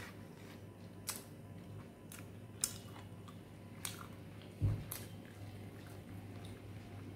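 Close-up eating sounds of a person eating chicken curry and rice by hand: soft chewing and squishing, with a few short sharp clicks and one low thump about four and a half seconds in, over a steady low hum.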